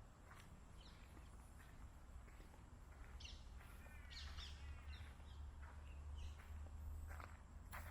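Faint wild birds calling: scattered high chirps, with a short warbling phrase of quick repeated notes about four seconds in, over a low steady rumble.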